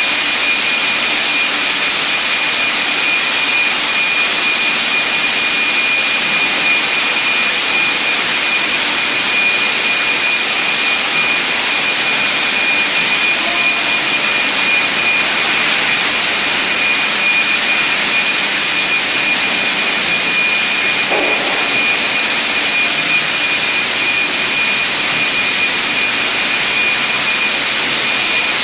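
Steady, loud hissing run of shellfish-processing machinery with a constant high whine running through it. A brief knock about three quarters of the way through.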